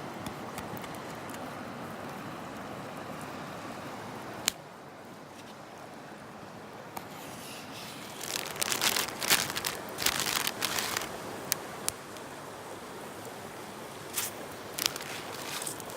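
Steady rushing of river water, with a sharp click about four seconds in. From about eight seconds in come irregular bursts of crinkling, rustling handling noise, which return briefly near the end.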